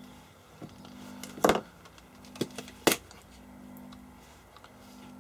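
A few sharp clicks and knocks from the small plastic parts and case of a multimeter being handled during disassembly, the loudest about one and a half seconds in and another near three seconds, over a faint steady low hum.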